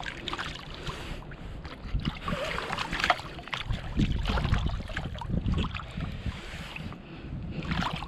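Shallow river water splashing and sloshing around a landing net as a trout is released from it, with a low wind rumble on the microphone.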